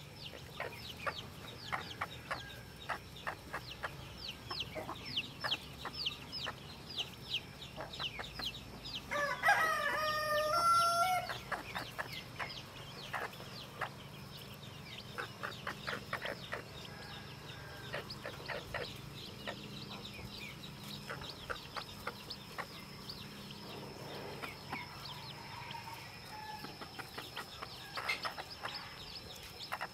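Newly hatched chicks peeping, a steady stream of short, high, falling cheeps. About nine seconds in, a rooster crows once, the loudest sound, lasting about two seconds.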